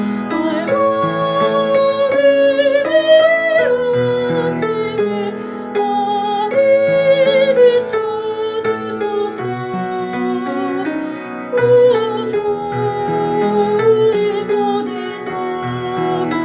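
Music: a slow Catholic hymn (생활성가) in four-part harmony, sustained chords that change every second or so under a wavering melody line.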